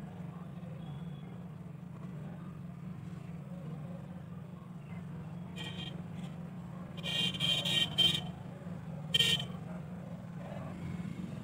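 Vehicle horn honking in short bursts: a brief toot about six seconds in, a longer run of honks a second later, and one more short toot after that. A steady low hum sits underneath.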